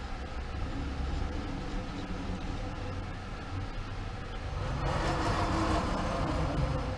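Steady low mechanical hum from a powered-up Bridgeport Romi EZ-Path II CNC lathe as its carriage is hand-cranked along the bed with the handwheel, with a louder stretch of noise about five seconds in.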